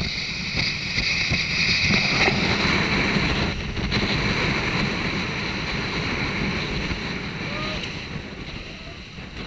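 Wind buffeting the microphone, with water rushing and splashing, as a rigid inflatable dive boat runs under outboard power. A break about three and a half seconds in, after which the rushing noise slowly dies down.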